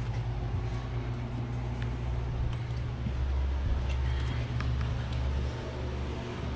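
Steady low hum of a window air-conditioning unit running, with a few faint knocks and rustles.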